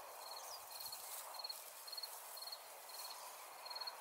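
Insect chirping: short, high, pulsed chirps repeating about twice a second over a steady hiss of outdoor field ambience.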